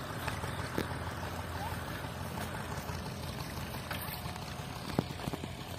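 Steady low rumble of wind buffeting the microphone, with a few faint knocks.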